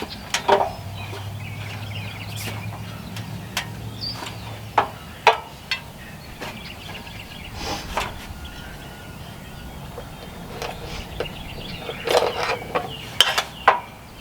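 Scattered sharp knocks and clicks, several in a quick cluster near the end, over steady outdoor background noise, with a low hum through the first few seconds.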